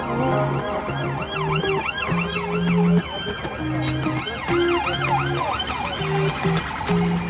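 Emergency vehicle siren in a rapid rising-and-falling yelp, about three wails a second. It comes in two spells, about a second and a half in and again around four and a half seconds in, over background music with steady held bass notes.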